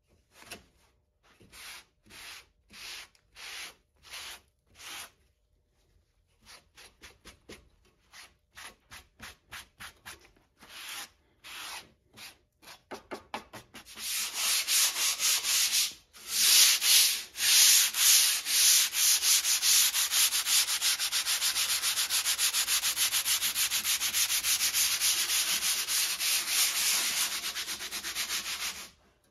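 An antique crosscut saw's rusty steel blade being sanded by hand: separate back-and-forth rubbing strokes at first, quicker from about six seconds in, then a fast, almost unbroken run of louder strokes from about halfway.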